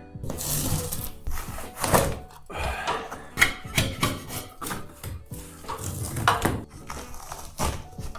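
Ceiling tiles being pulled down and dropped, with a string of sharp knocks, thunks and scraping, over light background music.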